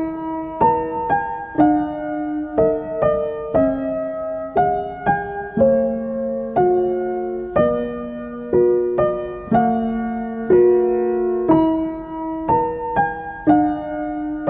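Background piano music: a slow, gentle melody of single notes struck about once or twice a second, each fading away.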